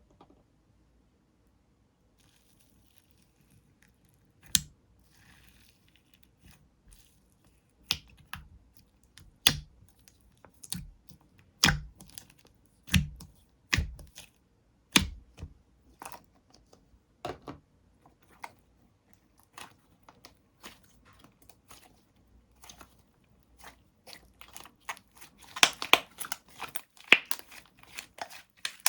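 Banana Cream Soufflé slime being handled by hand, giving sharp pops and clicks about once a second that turn into a dense run of crackling near the end.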